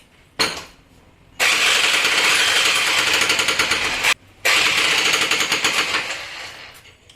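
Makita rotary hammer running with its hammer action: a short blip, then two runs of rapid hammering a few seconds each with a brief stop between them, the second winding down near the end.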